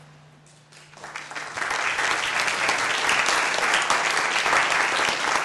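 Audience applauding: the clapping starts about a second in and quickly builds to a full, steady applause.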